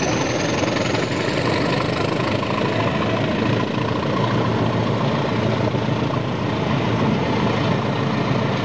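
A passenger train running past: the coaches' wheels rolling over the rails, steady and loud, with the diesel engine sound of the two Class 20 locomotives hauling it. A faint high whine rises in pitch and fades out in the first two seconds.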